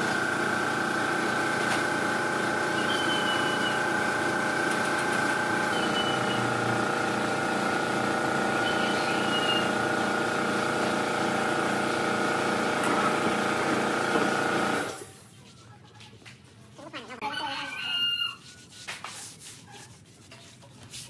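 A steady machine drone made up of many held tones, with faint short high chirps every few seconds, cuts off suddenly about three-quarters of the way through. In the quieter stretch after it a rooster crows twice.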